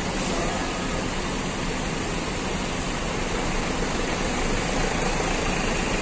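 Diesel engine of a coach bus running steadily as the bus moves off slowly.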